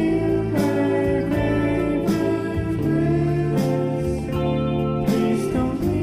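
Background music: a track of sustained pitched notes with regular note changes.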